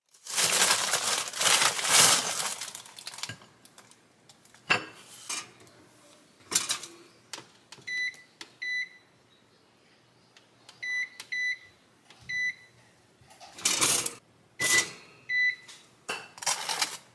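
Rustling of a paper bag, then scattered clicks and knocks. Then a digital toaster's control buttons beep as they are pressed: seven short, high single beeps over the second half.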